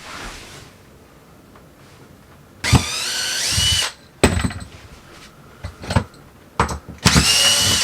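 A power drill runs in two bursts of about a second each, its whine rising as it spins up and then holding steady. A few sharp knocks come in between.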